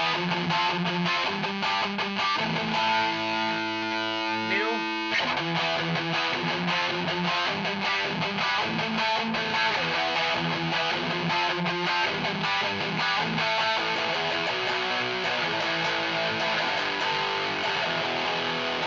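Electric guitar with Seymour Duncan Blackout active pickups played through a Peavey 6505 Piranha amp with high-gain distortion, chugging a metal riff. About four seconds in a chord is left ringing with a short rising slide, then cut off, and the riffing resumes.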